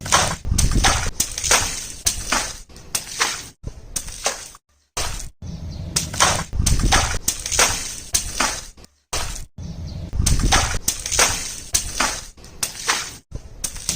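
Water balloons bursting one after another, each a sudden pop trailing off into a splash of water, several a second, in runs broken by abrupt short silences.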